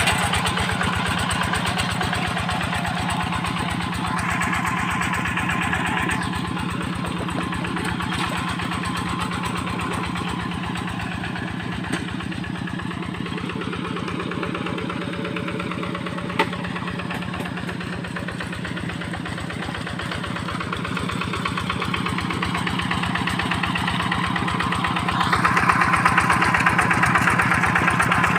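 Rice-field tractor engine running steadily with a fast even beat, quieter in the middle and growing louder again near the end. A single sharp click about 16 seconds in.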